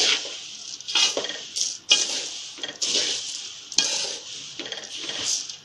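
A spoon stirring a dry mix of roasted poha flakes, peanuts and dal in a large metal pot: rustling, scraping swishes about once a second.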